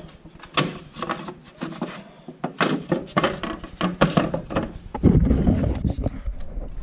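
Wooden stair riser board being slid in behind the housed stringers to test its fit: a run of wooden knocks, taps and rubbing. A louder low scraping rumble takes over in the last couple of seconds.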